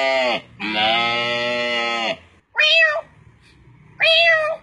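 A man imitating a cat's crying meow with his voice: two long, drawn-out calls, the second dropping in pitch as it ends about two seconds in, then two short, higher meows.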